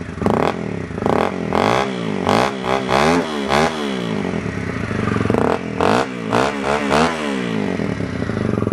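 Honda CRF250L's single-cylinder four-stroke engine revved in a series of quick throttle blips, the pitch rising and falling with each, in two bursts with steadier running between, through a Yoshimura RS4 full exhaust modified to raise back pressure so that it sounds a lot quieter and more muffled.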